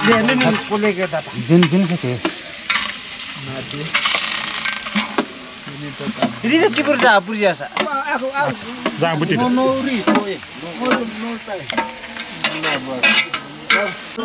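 Raw meat sizzling as it is tipped into a hot blackened pot on a wood fire, with a metal ladle stirring and clinking against the pot.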